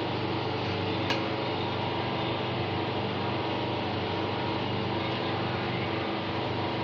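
Steady mechanical hum with an even hiss, and one light click about a second in.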